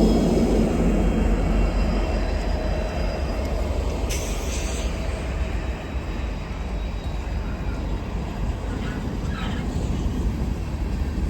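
Freight train rolling past, a steady rumble of wheels and cars that is loudest at the start and eases off after a couple of seconds. There is a brief sharp high sound about four seconds in.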